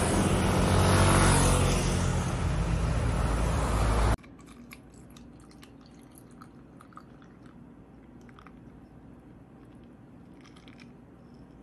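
Street traffic, a passing vehicle swelling and easing, that cuts off suddenly about four seconds in. Then, much quieter, iced coffee being poured into a glass, the ice cubes crackling and clicking.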